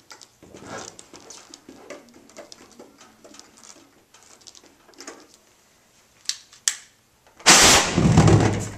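Ethanol vapour in a 5-gallon plastic water jug igniting: a sudden loud whoosh about seven and a half seconds in, lasting just over a second. Before it, only a few faint clicks and rustles.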